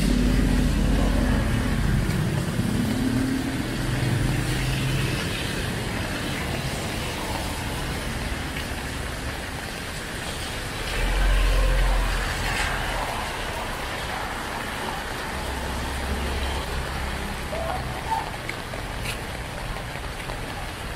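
Steady rain falling on a wet street, with vehicles driving past on the wet road. A motorcycle passes near the start, and a car goes by loudest about eleven seconds in.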